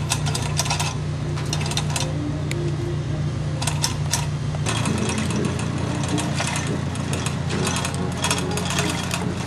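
Hand chain hoist lowering a heavy cast cylinder casing: the hand chain rattles and clicks through the block in short spells at first, then almost without a break from about halfway on. A steady low hum runs underneath.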